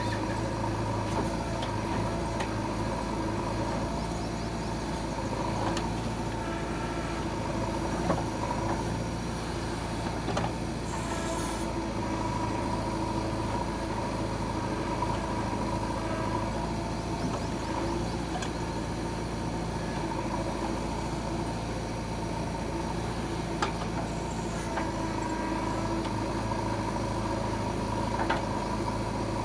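Engine of a JCB 3DX backhoe loader running steadily, with a constant whine over the engine note. A few sharp knocks are heard, and a short hiss comes about a third of the way through.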